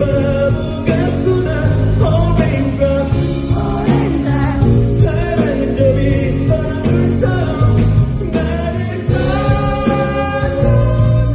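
Live pop/R&B song performance: a singer's voice over full band backing with a steady beat.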